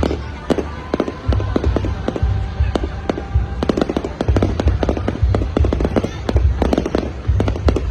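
Aerial fireworks going off: a rapid, irregular run of sharp bangs and crackles over a low rumble of booms.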